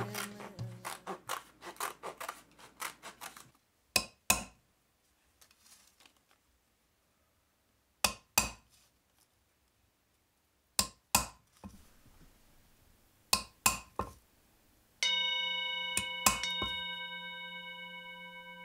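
Scissors snipping through rawhide for the first few seconds, then a hammer striking a hole punch to knock lacing holes in rawhide strips on a wooden block, in pairs of sharp blows every few seconds. About fifteen seconds in, a ringing tone with several overtones starts and slowly fades.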